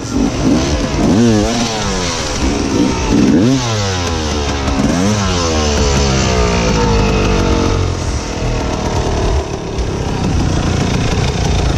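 Enduro dirt-bike engines revving in short bursts, the pitch rising and falling sharply several times, as the bikes are stuck against a log in sand; after the middle the revs drop slowly and the engines run more steadily.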